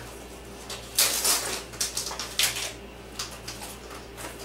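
A small product package being handled and opened by hand: irregular crinkling and scraping sounds, with a steady low hum underneath.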